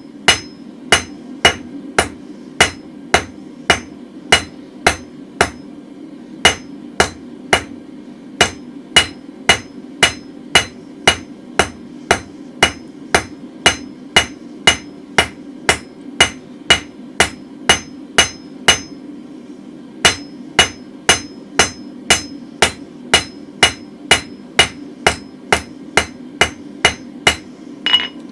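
Hand hammer striking hot mild-steel bar on an anvil in a steady rhythm, about two to three blows a second, with two brief pauses, as the end of a round drift is forged to a taper. A steady low hum runs underneath.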